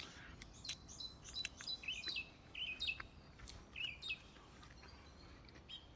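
Wild birds singing: a run of short, quick chirps and twitters, busiest in the first four seconds and thinning out towards the end, with a few sharp clicks scattered among them.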